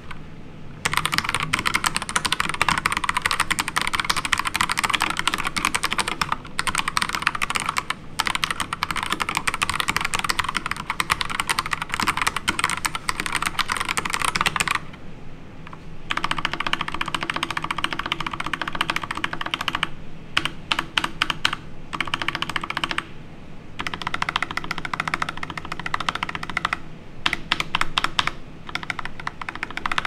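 Typing on an Akko 3068B Silent 65% mechanical keyboard with Akko Jelly Pink linear switches and PBT dye-sub keycaps. It is fast, continuous typing for about the first half, then a short pause, then key presses broken by several brief gaps.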